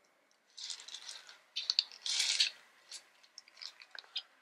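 Handling of a Dior embroidered canvas shoulder strap with gold-tone metal clasps: two bursts of rustling and metallic rattling, then a few short clicks as the clasp hook is fitted to the Saddle bag's metal ring.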